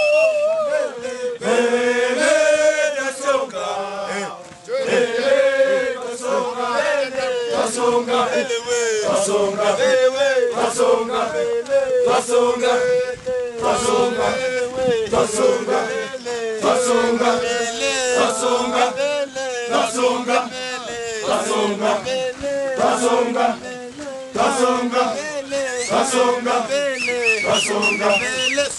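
Kilimanjaro porters and guides singing a rhythmic group chant, mostly men's voices together, with sharp strikes marking the beat.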